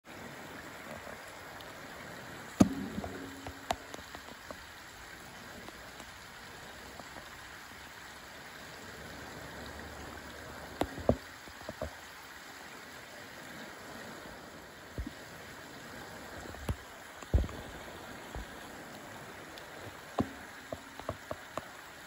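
Steady hiss of flowing river water, broken by scattered sharp knocks, the loudest about two and a half seconds in and others near the middle and toward the end.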